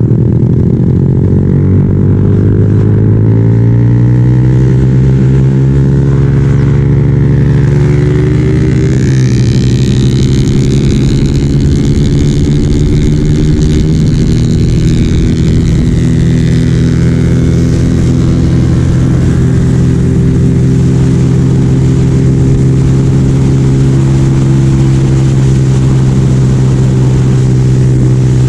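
Yamaha Sniper 135 underbone motorcycle's single-cylinder four-stroke engine under way. Its note rises over the first few seconds as the bike speeds up, then holds at a steady cruise.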